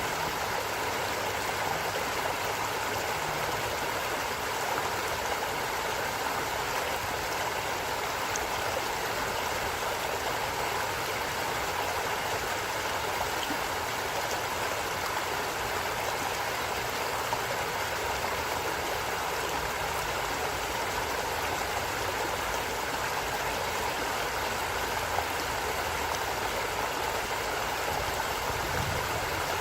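A stream of running water flowing steadily, with no change across the whole stretch.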